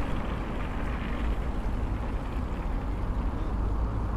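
Steady low wind rumble on the microphone of a moving road bike, mixed with passing car traffic.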